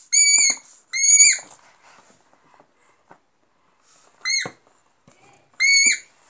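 A child's squeeze toy squeaking: four short, high squeaks, two in the first second and a half and two more near the end.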